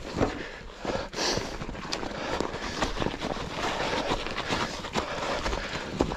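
A mountain biker moving with his bike through snow: a steady rough crunching noise with many small clicks and knocks.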